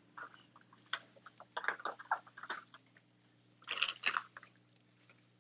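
A soft squeezable toy being kneaded and squeezed by hand, giving scattered small crackles and squelches, with a louder burst of crackling about four seconds in.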